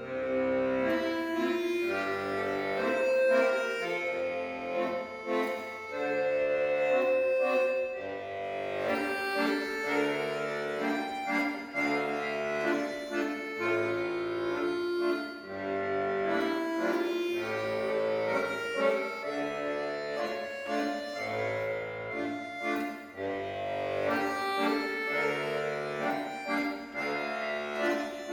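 Instrumental background music: a melody of held notes over a bass line that changes about once a second.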